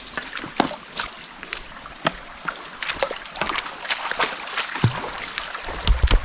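Footsteps splashing through a shallow rocky stream, with irregular sloshes and knocks over the running water, and a low thump near the end.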